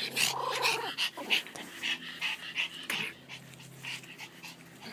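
Pomeranian puppies play-fighting, giving short repeated growls and yips that are busiest in the first three seconds and then die down.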